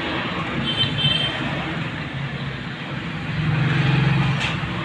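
A motor vehicle engine running steadily in the background, getting louder about three and a half seconds in, with a short click near the end.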